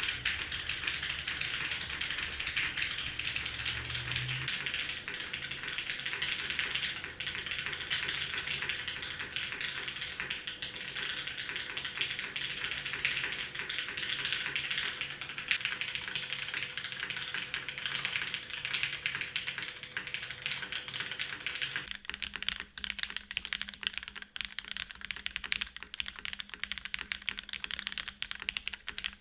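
Continuous fast typing on a Matrix 8xv2.0 mechanical keyboard with lubed Cherry vintage black linear switches, an aluminum plate and GMK keycaps: a dense, unbroken run of keystroke clacks.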